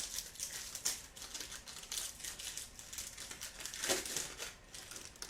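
A foil trading-card pack wrapper being torn open and crinkled by hand, an irregular run of crackling and crinkling with a louder burst about four seconds in.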